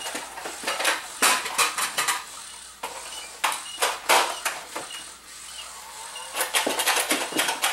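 Nerf foam-dart blaster being worked and fired: quick clusters of sharp plastic clacks and pops, several bursts about a second apart.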